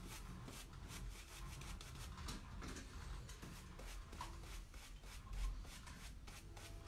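Half-boar, half-badger shaving brush scrubbed and swirled on a puck of shaving soap, a scratchy bristly rubbing in quick repeated strokes. The brush is being loaded thick with soap before water is added to build the lather.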